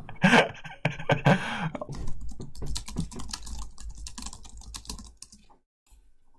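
Typing on a computer keyboard: a quick, uneven run of key clicks that stops about five and a half seconds in.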